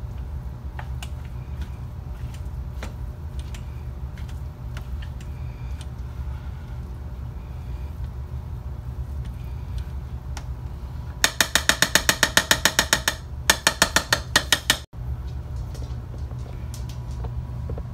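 A metal spoon stirs and scrapes a thick ground-meat mixture in a slow-cooker's crock, with light clicks over a steady low hum. About 11 seconds in come two loud runs of rapid ratchet-like clicking, about eight a second, each lasting a second or two.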